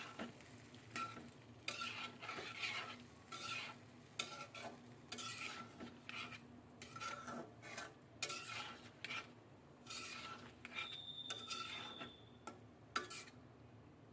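Spatula stirring and scraping food in a cooking pan in repeated strokes, about two a second, with faint sizzling underneath.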